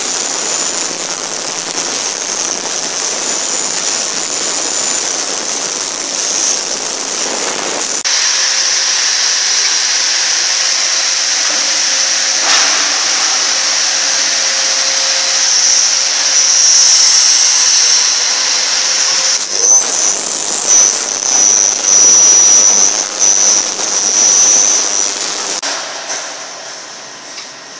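Five-station round ultrasonic cleaning machine running: a steady, loud hiss with a high-pitched whine. The sound changes abruptly about eight seconds in, wavers in level later on, and dies down near the end.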